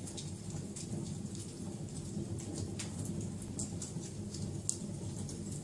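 Wood fire crackling: frequent sharp snaps and pops over a steady low rumble.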